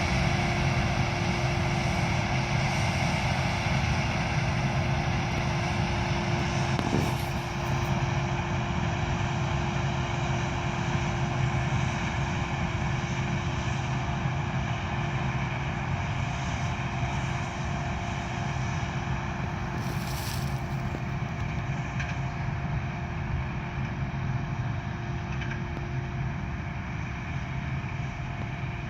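Combine harvester running steadily while harvesting corn, a continuous engine drone with a constant whine over it.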